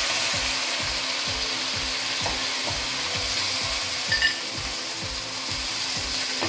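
Raw crab pieces sizzling in hot oil in a clay pot, with a wooden spoon stirring and knocking through them. A short sharper sound about four seconds in.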